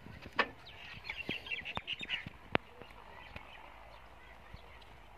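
Small birds chirping in quick short calls about a second into the sound, with a few sharp clicks, the loudest about half a second in.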